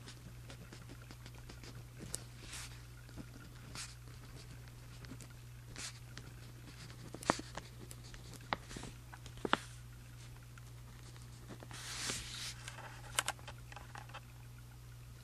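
Handwriting on the paper page of a journal: irregular short scratching strokes and small ticks of the writing tip, with a longer run of scratching about three-quarters of the way through.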